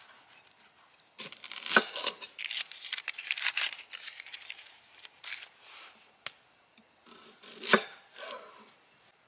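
Dry onion skin crackling and tearing as it is peeled off by hand for a few seconds. Then a large knife cuts through the onion onto a bamboo cutting board, with one sharp knock near the end.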